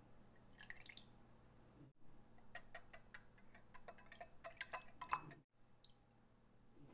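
Milk briefly poured into a glass bowl of egg yolks, then a metal wire whisk beating the mixture, its wires clicking rapidly against the glass bowl for about three seconds. The sounds are faint.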